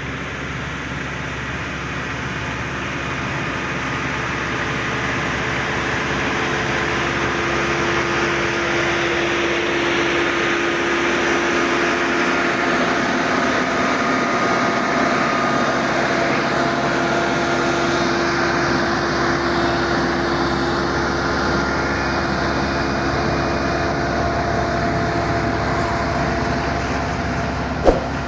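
Road roller's diesel engine running steadily, a continuous mechanical drone with a held hum. It grows louder over the first ten seconds or so, then eases a little. A sharp click comes near the end.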